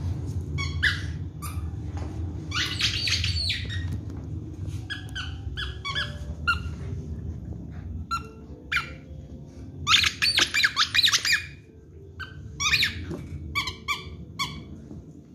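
A squeaky plush dog toy squeaking over and over as a dog bites it: short single squeaks, and two fast runs of squeaks, one about two and a half seconds in and one about ten seconds in.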